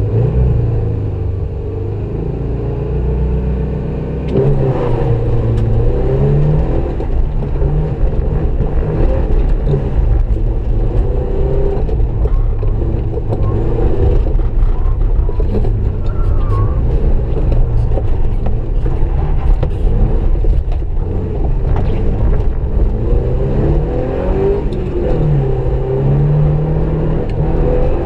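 Subaru Impreza's flat-four boxer engine heard from inside the cabin, pulling away about four seconds in and then revving hard up and down through the gears as the car is driven fast on snow, with short clicks and knocks from the car and the road surface.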